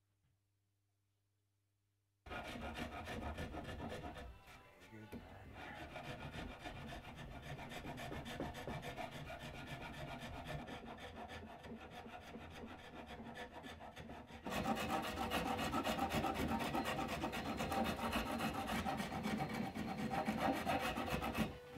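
Hand rasp scraping over the wooden frame of a bench, shaping the joint where a leg meets a rail: continuous rasping strokes on wood. It starts about two seconds in and grows louder in the last third.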